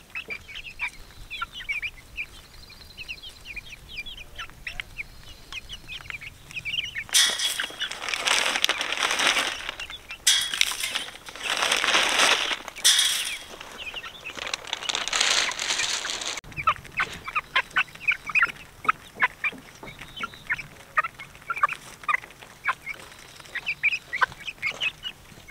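Young chickens clucking and peeping in quick, high chirps. In the middle, several seconds of loud rustling noise take over, then break off suddenly, and the chirping carries on.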